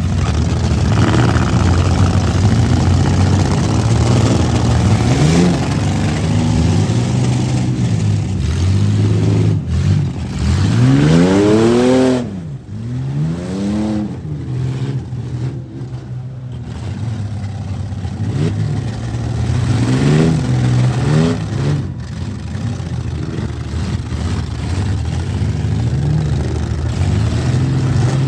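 Demolition derby car engines running and revving hard, the pitch repeatedly climbing and dropping as the cars accelerate and back off, with a couple of sharp knocks.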